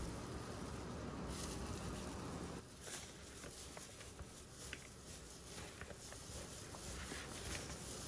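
A hand in a disposable plastic glove tossing julienned radish with chili flakes and seasoning in a plastic bowl: soft crinkling and many small wet clicks. A steady soft hiss fills the first two and a half seconds, before the mixing clicks take over.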